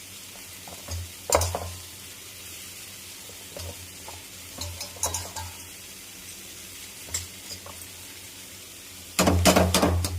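A spatula stirring poha in a pan over a steady faint sizzle, with scattered scrapes and clinks against the pan and a quick run of loud scraping near the end.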